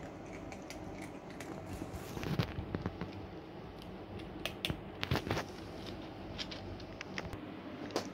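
Cats eating dry kibble from a plastic storage box: irregular crunches and clicks of chewing and of kibble shifting, with louder clusters about two and a half and five seconds in.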